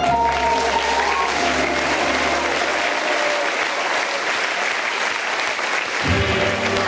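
Audience applauding, steady and loud, with low music underneath that stops about three seconds in and starts again near the end.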